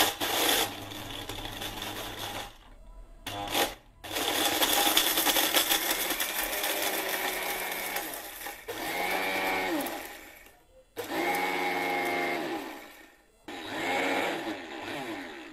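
Orpat 1200-watt mixer grinder grinding whole brick in its stainless steel jar. It is switched on in several bursts with short pauses. The grind is coarse and rattling at first, then becomes a smoother motor whine that dips and rises in pitch between runs as the brick is reduced to powder.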